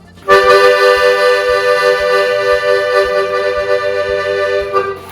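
Piano accordion holding one chord for about four and a half seconds while the bellows are worked in a circular motion, so the volume gently wavers like a 'little curve of sound'. The chord starts sharply and is cut off just before the end.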